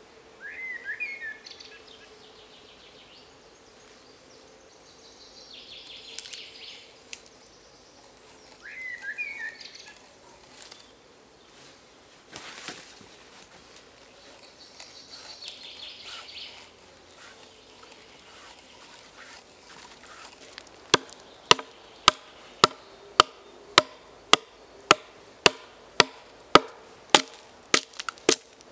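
Hatchet chopping into a wooden log in steady strokes, about two a second, starting about two-thirds of the way in. Before that, only scattered bird chirps and a faint insect buzz.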